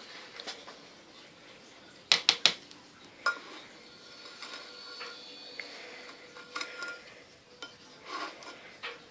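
Spoon clinking against a small Easy Bake baking pan: three quick sharp taps about two seconds in, one more a second later, then lighter clinks and scraping.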